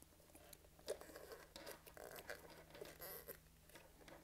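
Near silence, with faint rubbing and scattered small clicks of hands working the stretchy rubber second skin of an M40A1 gas mask over its exhale valve assembly.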